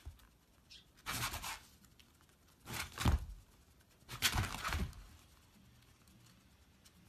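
Hedgehog rolled into a ball, huffing and popping in defence: three short crackly bursts about a second and a half apart, the last the longest.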